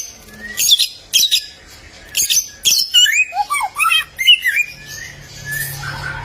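Male bare-throated whistler singing: a few short harsh notes, then from about three seconds in a quick run of whistled notes that slide up and down.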